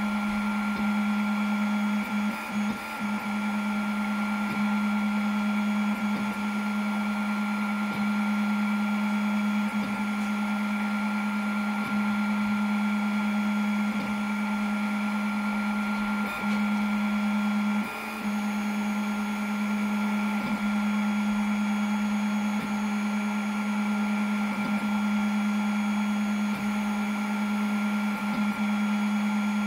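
Snapmaker 2.0 A150 laser engraver at work cutting plywood: a steady machine hum with a strong low tone and a fainter high whine, dipping briefly every few seconds as the head moves from one cut to the next.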